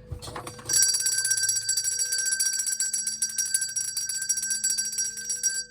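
A bell sound effect ringing continuously with rapid, even strikes for about five seconds, then cutting off suddenly.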